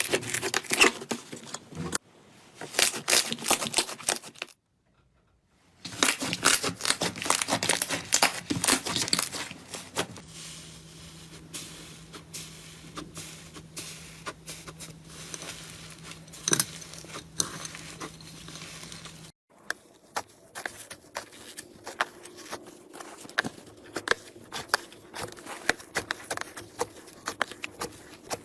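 Slime being squeezed, poked and stretched by hand, making dense crackling and popping clicks, in several short clips with a brief silent gap about five seconds in.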